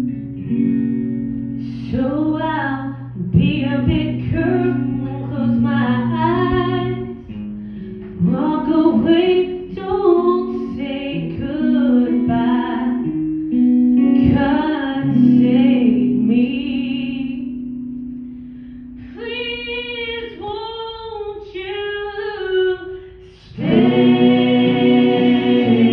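A woman singing a slow song into a microphone over live guitar accompaniment. Late on, the backing thins under her voice, then swells into a loud held chord near the end.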